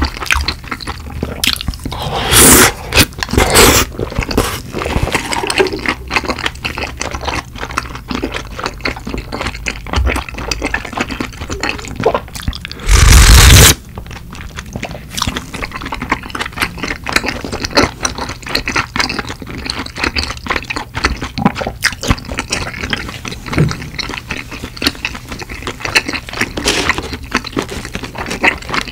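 Close-up eating sounds of a person chewing saucy spicy rice cakes (tteokbokki), with wet mouth clicks throughout. Sauce is slurped off a ladle in short loud slurps about two and a half and four seconds in, and in a longer, louder slurp around thirteen seconds in.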